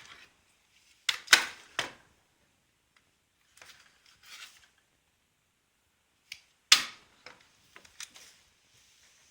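Several sharp knocks and clicks of things being handled: a quick group of three about a second in, a single loud one near seven seconds, and a few lighter ones after it, with softer rustling in between.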